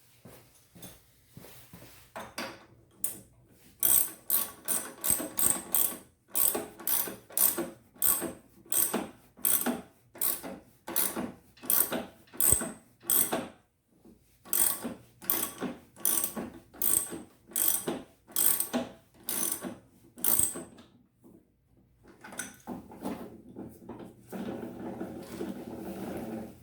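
Ratcheting clicks in a long run of short back-and-forth strokes, about two a second, followed near the end by a softer, steadier rasping.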